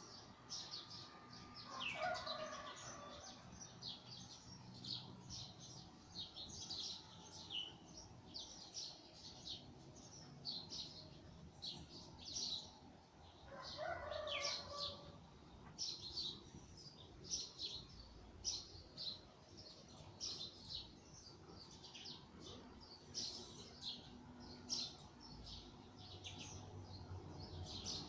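Dawn chorus of many small birds chirping continuously. A rooster crows twice, about two seconds in and again near the middle.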